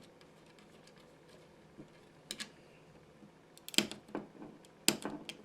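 Screwdriver and wall switch cover plate being worked loose: scattered sharp clicks and taps, a pair about two seconds in and louder clusters near the end.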